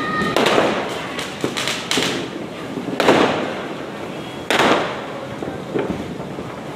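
Diwali firecrackers going off: about four loud bangs, each dying away in an echo, with smaller pops and crackles between them.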